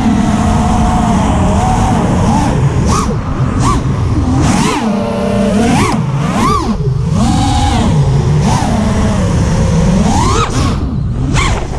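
Brushless motors of a 5-inch FPV racing quadcopter (RCX RS2206 2400kv, tri-blade props) whining, the pitch swooping quickly up and down with the throttle, over wind noise on the onboard camera's microphone.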